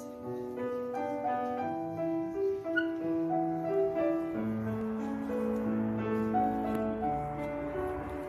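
Instrumental background music: a melody of held notes over a lower bass line.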